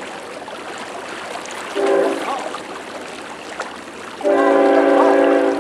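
Train horn sounding a steady multi-note chord: a short blast about two seconds in, then a longer blast near the end.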